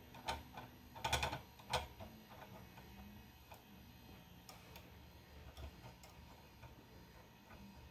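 Faint clicks and light ticks of a brass anti-backlash nut being worked by hand onto a threaded lead screw, metal on metal. A few sharper clicks come in the first two seconds, then only scattered faint ticks.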